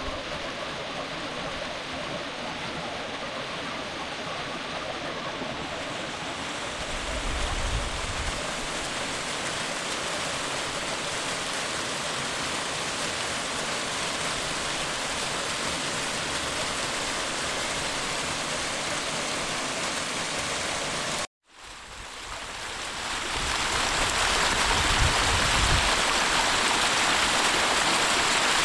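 Running river water flowing steadily. About 21 s in, the sound cuts out for a moment, then a louder, brighter rush of water fades in.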